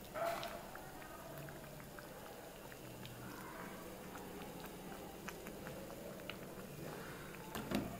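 Faint clinks and scrapes of a ladle against a clay pot as sorrel-leaf gravy is spooned out, with a few louder knocks near the start and near the end.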